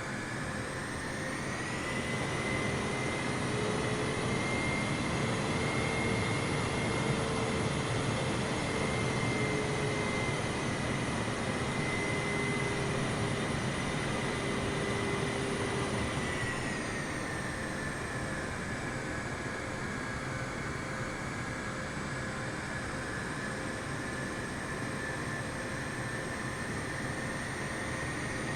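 Jet airliner engines running with a steady rush and a high whine; the whine rises in pitch about two seconds in, holds, then falls back to a lower setting around seventeen seconds in, the sound of the engines being throttled up and then eased back.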